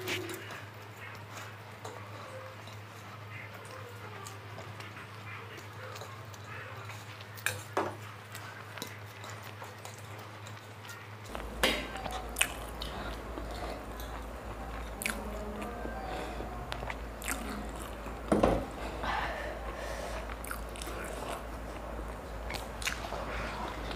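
Two people eating chowmein noodles and momos with their hands: close-up chewing, biting and mouth sounds, with a few sharp knocks about seven, twelve and eighteen seconds in. A steady low hum runs underneath and drops in pitch about eleven seconds in.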